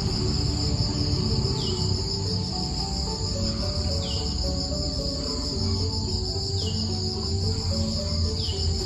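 Insects chirring in a loud, steady, high-pitched drone, with a short falling chirp about every two and a half seconds. Soft background music plays underneath.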